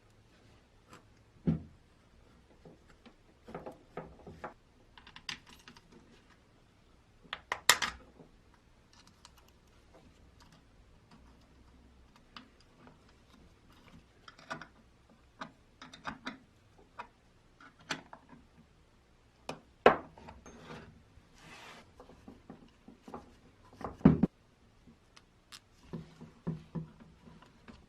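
Irregular small clicks, taps and knocks from hand work on old fan parts, with a few louder knocks about 8, 20 and 24 seconds in.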